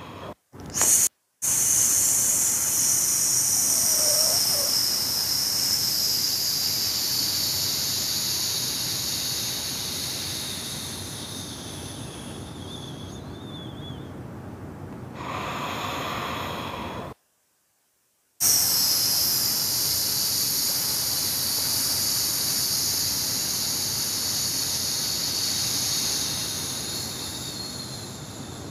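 A woman's long hissed 'sss' exhales, two of them, each held for about eight to ten seconds and slowly fading, with a quick inhale between them about halfway through. This is the core breath: the 'S' hiss drives a strong contraction of the abdominal muscles and a lift of the pelvic floor on each exhale.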